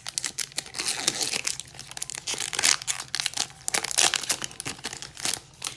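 Foil Pokémon booster pack wrapper crinkling and tearing as it is opened, a dense run of irregular crackles that stops shortly before the end.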